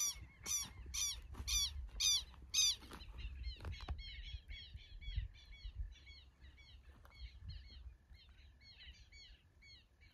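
Birds calling: one call that slides down in pitch repeats about twice a second, loud for the first three seconds, then fainter, quicker calls carry on.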